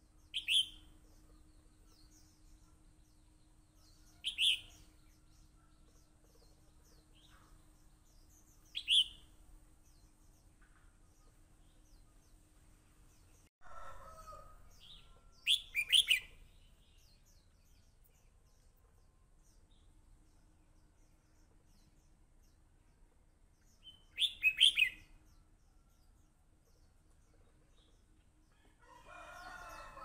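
Red-whiskered bulbul singing short, bright, chirping phrases every few seconds, five in all. Twice there is a lower, longer call in the background.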